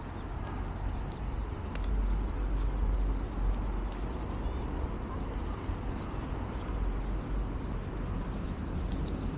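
Outdoor park ambience on a walk: a steady low rumble that swells for a second or two, with faint bird chirps over it.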